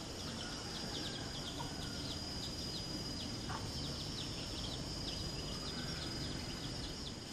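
Outdoor ambience of birds chirping rapidly in many short, high, falling notes over a steady high insect drone and a faint hiss.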